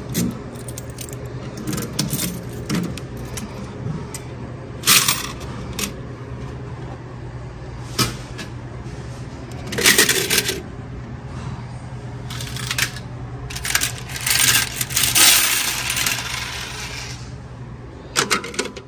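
Quarters jingling and clattering in the plastic coin trays of a candy vending machine as the trays are worked loose and lifted out. The jingling comes in several bursts, the loudest about ten seconds in and again around fifteen seconds.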